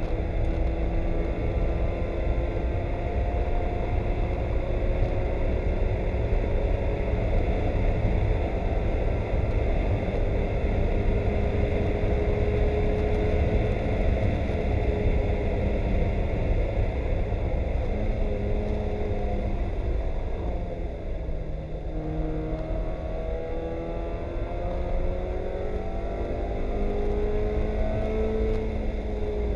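Spec Miata race car's four-cylinder engine heard from inside the cockpit, pulling hard with its pitch climbing slowly through a long run. About two-thirds through it drops off and quietens briefly for a corner, then climbs again in steps as it accelerates away.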